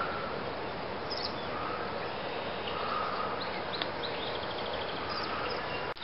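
Birds chirping in the trees over steady outdoor background noise, with a short rapid trill about four seconds in.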